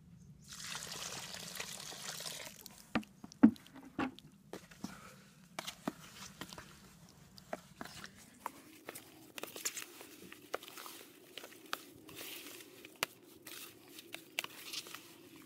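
Water poured from a can into a plastic bowl of dry refractory cement for about two seconds, then a round-nose trowel stirring and scraping the wet mix, with irregular scrapes and knocks against the bowl. A faint steady hum runs under it from about halfway through.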